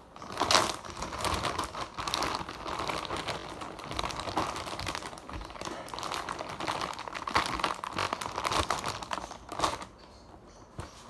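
Slime being handled and squished, with fake snow and clay in it: a steady run of small crackling, crinkling clicks that fades out near the end.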